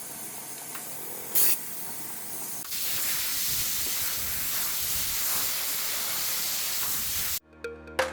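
Pressurised gas hissing from a refrigerator's refrigerant line or charging hose, with a brief louder burst about a second and a half in and a stronger, steady hiss from just under three seconds; it cuts off suddenly near the end.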